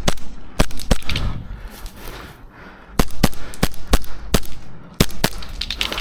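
Airsoft pistols firing: over a dozen sharp cracks in quick pairs and short strings, with gaps of about a second between groups.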